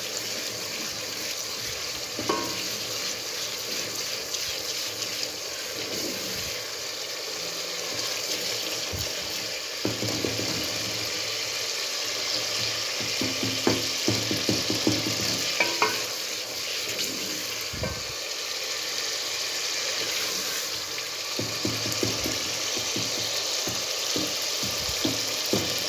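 Onion-tomato masala sizzling as it fries in a pot, stirred with a wooden spoon. Steady sizzle, with scattered knocks and scrapes of the spoon against the pot, more frequent in the second half.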